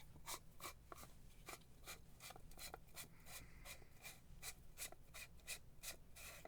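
Faint handling noise from shower head parts being turned over in the hands: an irregular run of small clicks and light rubbing, several a second.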